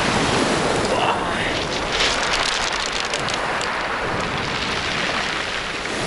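Sea surf breaking and washing up a pebble beach as a steady rushing hiss, with a stretch of clattering pebbles about two to three and a half seconds in.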